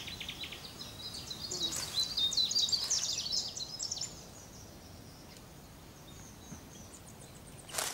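Birds chirping in a rapid run of short, high notes for about the first four seconds, over faint open-air ambience; after that only the faint background remains.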